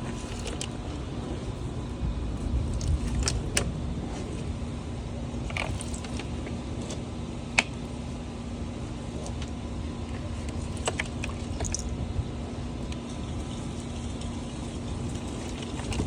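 A motor vehicle's engine running steadily with a low, even hum, with scattered clicks and knocks over it.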